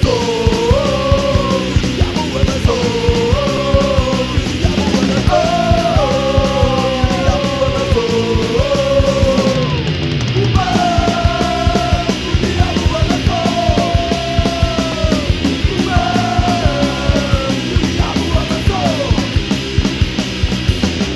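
Punk rock band playing an instrumental passage: electric guitars, bass and drums over a fast, steady beat, with a repeating melodic line on top.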